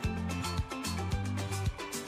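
Upbeat background music with a steady beat, about two beats a second over a bass line.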